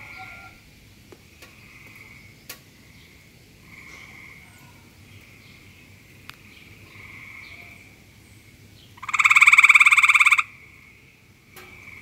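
Tree frog giving its mating call: one loud, fast rattling call lasting about a second and a half, near the end. Fainter, shorter calls repeat in the background throughout.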